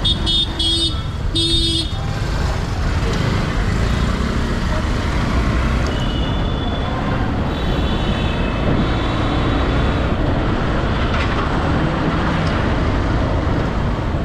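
Single-cylinder Honda Shine 125cc motorcycle running through city traffic, its engine and road noise a steady low rumble. A vehicle horn gives two short loud honks in the first two seconds, and fainter horns sound a few times around the middle.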